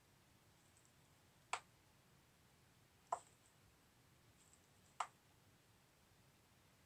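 Three sharp clicks of a computer pointer button, about a second and a half to two seconds apart, in an otherwise near-silent room.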